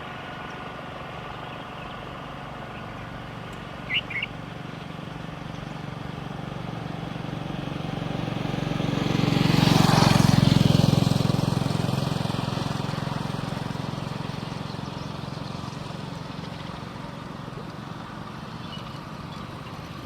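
A motor vehicle approaches, passes close about ten seconds in, and fades away. A bird gives a short double chirp about four seconds in.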